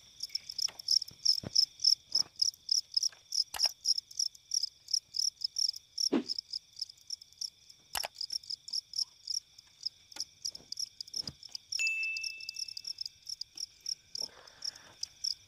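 Field crickets (jangkrik) chirping in a quick even rhythm, about four high chirps a second, over a steady high insect trill. A few sharp light knocks come from the bamboo cage being handled.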